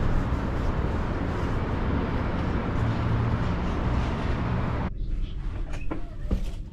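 Wind buffeting the microphone: a steady rushing noise with a low rumble. It cuts off abruptly about five seconds in, giving way to a much quieter room with a few light knocks.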